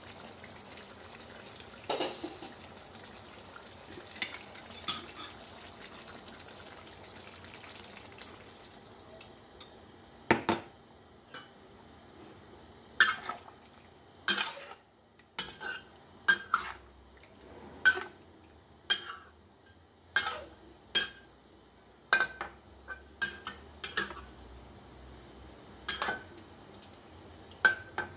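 A metal spatula stirring curry in a wok, clanking against the pan's side: a few knocks early on, then sharp clanks about once a second through the second half.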